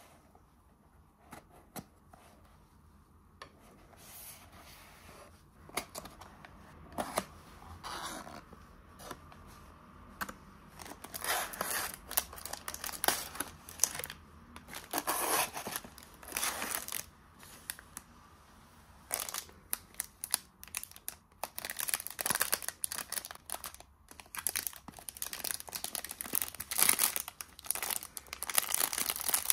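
Soft handling of a paper box at first, then the thin clear plastic wrapper around a daifuku crinkling and tearing as fingers work it open, in bursts that grow louder and denser toward the end.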